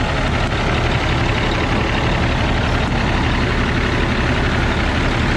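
Cummins ISX inline-six diesel engine in a semi truck idling with the hood open, a loud, steady running noise while the truck builds air pressure.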